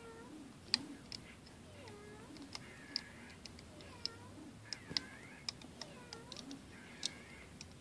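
Rubber bands being looped off the pegs of a plastic Rainbow Loom with a hook: scattered sharp little clicks and snaps, with faint squeaky glides in between.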